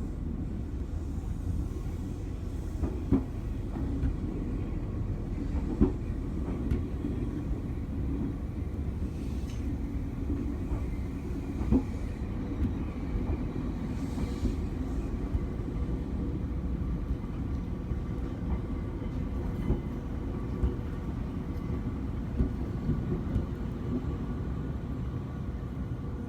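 Diesel-hauled train of railcars running along the track, a steady low rumble with scattered sharp clicks and clacks of wheels over rail joints.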